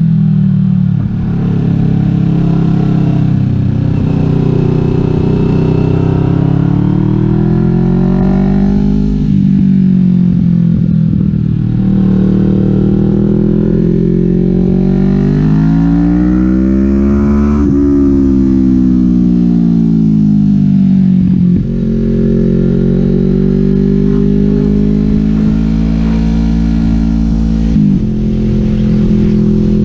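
2018 Kawasaki Vulcan S's 649 cc parallel-twin engine running loud through a Delkevic 550 mm slash full exhaust, heard from the rider's seat. The revs rise and fall over and over as the bike leans through a run of bends, climbing to their highest about two-thirds of the way in, with brief gear-change breaks about a second in, around nine seconds in, around twenty-one seconds in and near the end.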